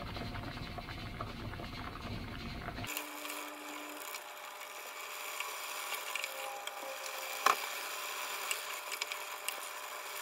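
Red pepper-paste sauce simmering in a pot with sheets of fish cake on top, then a wooden spatula stirring the fish cake through the thick sauce, with small ticks and scrapes and one sharper click about seven and a half seconds in.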